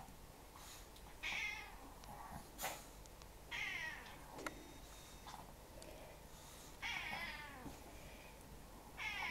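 Domestic cat meowing repeatedly at a closed door, asking to be let outside: four drawn-out meows a few seconds apart, each falling in pitch, the last one near the end. A sharp click falls between the first two.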